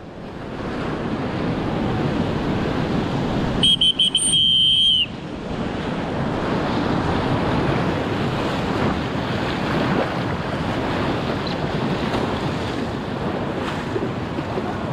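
Salt River whitewater at 1600 cfs rushing and churning around a packraft in the rapids. About four seconds in, a loud, steady high-pitched tone cuts in for about a second.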